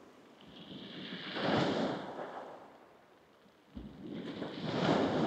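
Waves breaking on a shingle beach: two surges about three and a half seconds apart, each swelling to a hissing wash and falling away.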